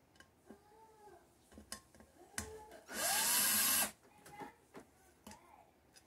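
Cordless drill/driver removing screws from a ceiling fan's switch housing. It whirrs up in pitch for about a second near the middle, with a few brief lighter trigger pulls and clicks before and after.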